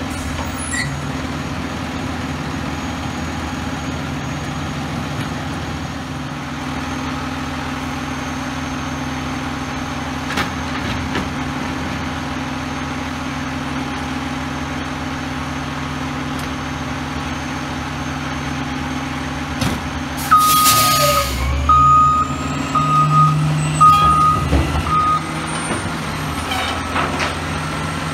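Autocar Xpeditor front-loader garbage truck idling steadily for about twenty seconds. Then a sharp hiss from the air brakes releasing, the reversing alarm beeping about six times, and the engine revving up in rising sweeps to drive the hydraulic arms lifting the container over the cab.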